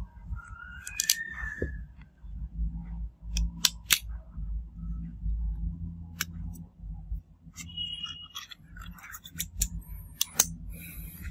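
Hands handling the parts of a disassembled smartphone: scattered sharp clicks and taps as the phone, its frame and display panel are picked up and moved, over a low handling rumble.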